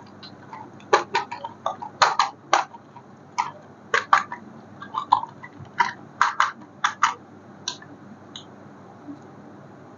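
A run of irregular short, sharp clicks and taps, some in quick pairs, stopping about eight and a half seconds in.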